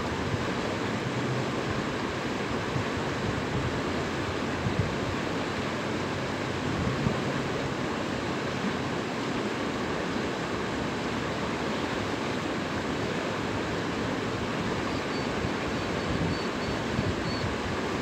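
Fast-running water rushing and churning in a steady, unbroken flow, foaming white over a shallow step.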